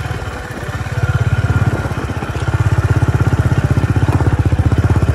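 Motorcycle engine running under way on a dirt track, with a rapid, even exhaust pulse that grows louder about a second in and again midway.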